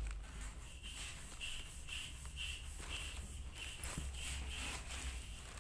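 Light handling noise from a new sneaker being turned over its tissue paper in the box. Under it runs a faint high chirp about twice a second and a low hum.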